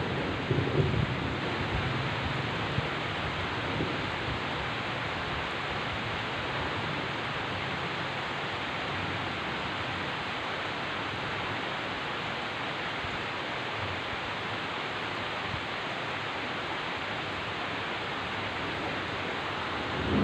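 Heavy rain falling with a steady, even hiss, with the last of a low thunder rumble fading in the first second.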